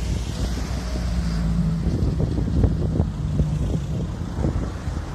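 Car engine running at low speed as cars drive slowly past, a steady low hum. From about two seconds in, wind buffets the microphone in irregular gusts.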